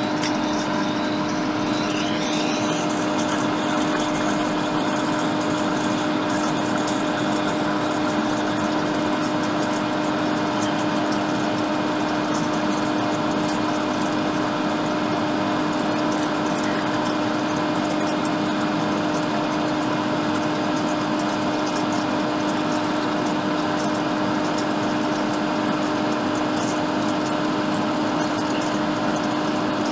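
Hot air rework station blowing steadily, a constant fan hiss with a steady hum, as it heats the board to remove the burnt ACL3247 chip.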